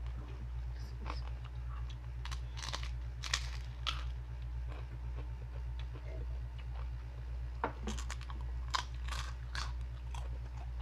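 Close-up crunching and chewing of chicharon (deep-fried pork rinds), in irregular crackly bites: a run of them in the first four seconds and another near the end. A steady low hum runs underneath.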